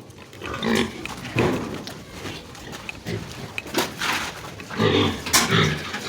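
Pigs grunting in a run of irregular, uneven calls, with a few sharp clicks among them.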